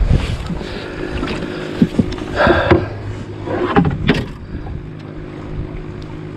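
Small fishing boat in gusty wind: wind rumbling on the microphone over a steady electric trolling-motor hum holding the boat in place. A few sharp knocks, then clattering handling noises about two and a half and four seconds in.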